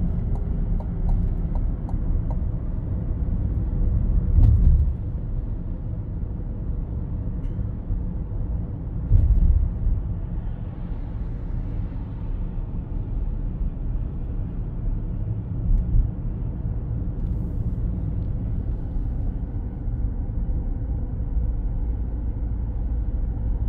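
Road and tyre noise inside the cabin of a Chevrolet Silverado EV pickup slowing under regenerative braking: a steady low rumble, with a few heavier low thumps about 4, 9 and 16 seconds in.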